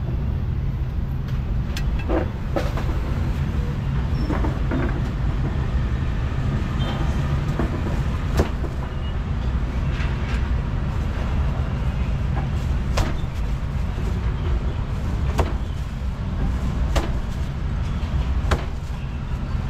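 Cleaver chopping a roast duck on a thick wooden chopping block: about a dozen sharp chops, irregularly spaced, from under a second to a few seconds apart. A steady rumble of street traffic runs underneath and is the loudest sound.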